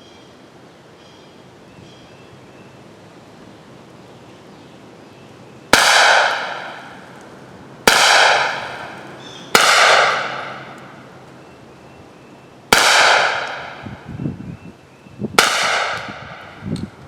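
Five shots from a 9mm firearm loaded with handloads, unevenly spaced about two to three seconds apart, each a sharp crack with a ringing tail that dies away over a second or two.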